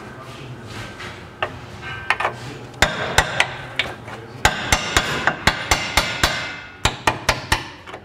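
Hammer striking metal, tapping the new lower control arm of a 2003 Acura MDX into place to line up its bolt hole. A few separate blows come first, then from about halfway in a steady run of about three to four ringing strikes a second.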